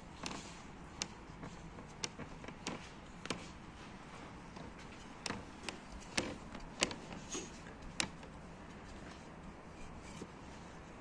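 Thin wooden rolling pin rolling out a thick round of dough on a floured wooden board, with light, irregular clicks and taps of wood on wood. The sharpest taps come in a cluster about five to eight seconds in.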